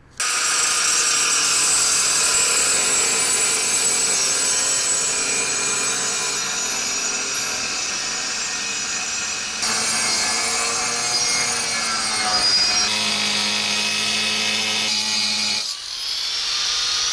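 Harbor Freight angle grinder with a cut-off disc cutting through thick 3/16-inch metal plate: a loud, steady grinding whine. The sound changes abruptly a couple of times, and near the end it briefly drops and then rises again.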